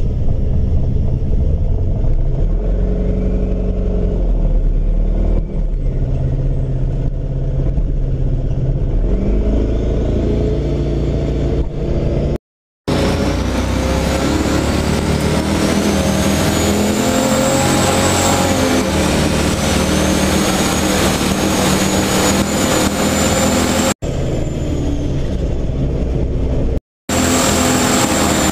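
Turbocharged 4.8 L LS V8 running at low speed, heard from inside the car's cabin. In the middle stretch a high whistle rises and falls over it. The audio cuts out briefly twice where the footage is edited.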